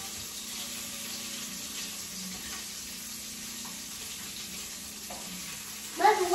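Bacon frying in a pan, a steady even sizzle. A voice with a rising-and-falling pitch starts near the end.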